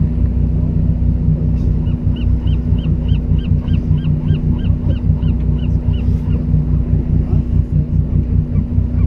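A fishing boat's engine runs with a steady low hum throughout. From about two seconds in, a gull calls a quick series of about a dozen short, even notes, roughly three a second, that stops after about four seconds.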